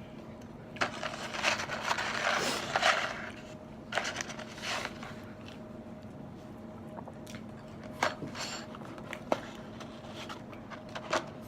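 Rustling and scraping of takeout food packaging and containers during eating, in two longer stretches of rustle, then a few sharp clicks or taps.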